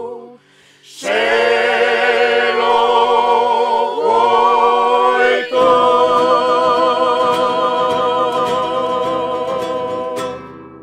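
A folk vocal group singing the closing chords of a Tabarchine serenade in harmony. After a short break they enter on a held chord, shift to another, then hold one long final chord with vibrato that fades away near the end.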